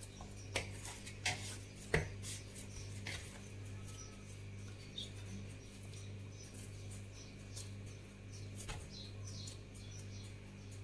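Soft, scattered taps and clicks of hands pressing and turning semolina bread dough in a woven wooden bowl, over a steady low hum.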